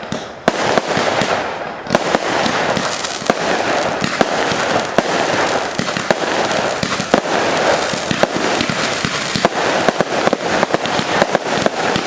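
Fireworks display going off in a dense, rapid barrage of bangs and crackling, many reports a second. It thickens about two seconds in.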